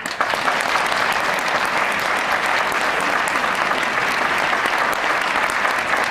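Audience applauding: many hands clapping, loud and steady throughout.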